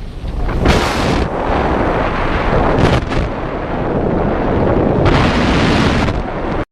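Parachute sound effect: loud rushing wind noise, with surges of brighter flutter about a second in, around three seconds, and from about five to six seconds. It cuts off suddenly near the end.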